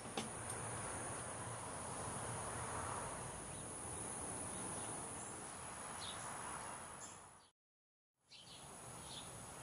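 Outdoor summer ambience: a steady high-pitched insect drone over a soft background hiss, with a few faint bird chirps. The sound cuts out for under a second about three quarters of the way through, then resumes.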